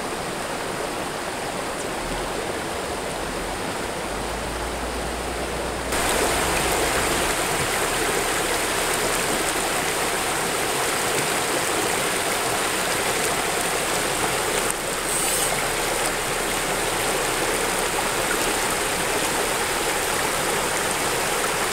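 Shallow river water rushing steadily over rocks and riffles. About six seconds in the rush jumps louder and brighter.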